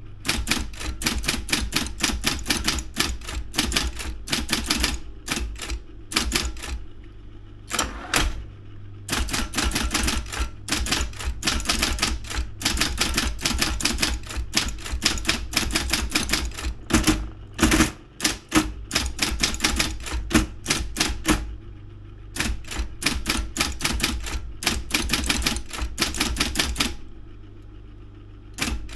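Daro 202 electric typewriter typing in quick runs of keystrikes over the steady hum of its motor. The typing stops briefly twice, and the motor keeps humming through each pause.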